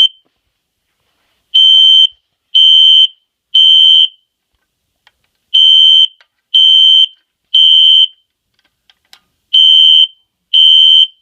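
Fire alarm sounding a loud, high-pitched beep in the temporal-three evacuation pattern: three half-second beeps a second apart, then a pause, repeating about every four seconds.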